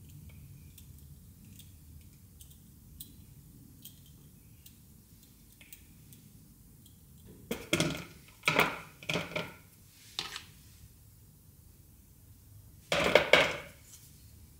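Hard items clattering and clinking in a plastic mixing bowl as a hand works through it: light scattered ticks at first, then several loud rattling bursts around the middle and one more near the end.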